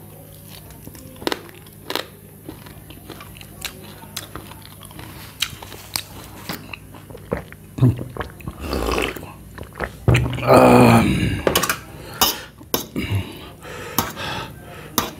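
Close-miked chewing and biting on roasted goat ribs, full of small wet mouth clicks. About halfway through come gulps of water from a glass mug, then a drawn-out voiced breath out. Near the end there are a few sharp clicks.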